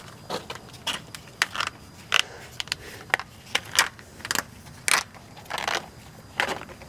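Irregular metallic clinks, taps and short scrapes from hand work at a semi truck's drive-axle wheel hub, as hub parts and their gaskets are worked loose by hand.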